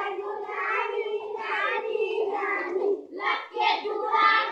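A group of children singing and chanting together, many young voices at once, with a short break a little after three seconds in.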